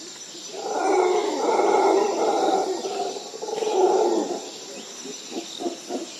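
Deep animal growling, a horror-film beast sound effect, rising in two long swells and breaking into a run of short growls near the end.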